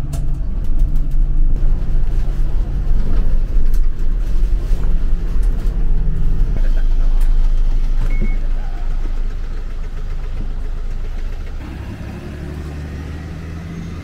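Engine and road rumble inside a moving bus, the engine note stepping up and down a few times. The rumble eases off about two-thirds of the way through to lighter, quieter traffic-type noise.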